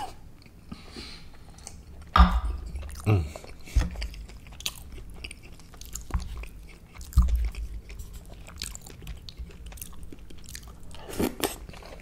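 Close-miked chewing and wet mouth sounds of a person eating gumbo with rice. A few sharp knocks and low thumps are scattered through, the loudest about two seconds in.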